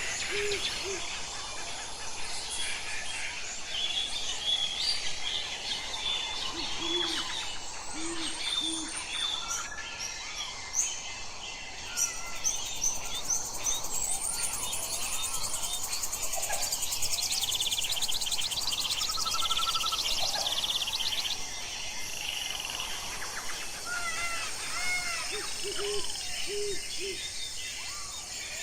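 Forest ambience: an owl gives several series of three short, low hoots, over a constant mix of bird chirps, whistles and a fast high trill.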